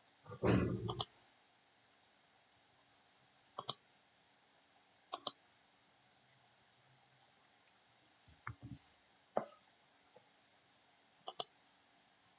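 Computer mouse button clicks, mostly in quick double-click pairs spaced a few seconds apart, with a louder rustling knock about half a second in.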